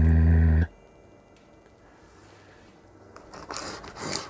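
Cardboard shipping box being opened: irregular scraping and tearing of cardboard and tape, starting about three seconds in.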